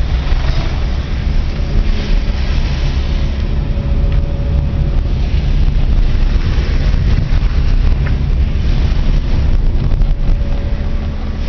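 A car driving, heard from inside the cabin: a steady low engine and road drone with a faint steady hum above it.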